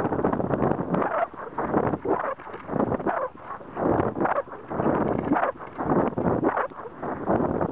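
Rushing air buffeting the microphone of a camera riding on a model rocket in flight, coming in irregular loud gusts.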